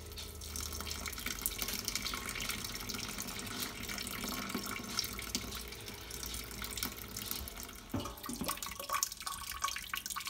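Wort pumped round the BrewTools B80pro's malt pipe, running down its central overflow tube and splashing steadily onto the mash. About eight seconds in this gives way to irregular splashing and bubbling from the wort in the kettle as it heats towards the boil.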